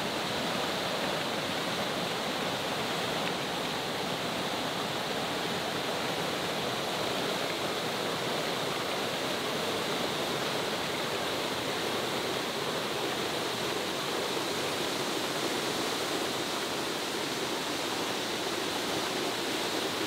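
Waterfall pouring down two broad rock steps: a steady, unbroken rush of falling water.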